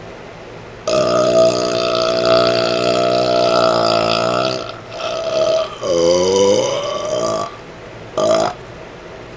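A man's burps voiced into a running fan, over the fan's steady whir: one long drawn-out burp of nearly four seconds, a second that dips and then rises in pitch, and a short one near the end.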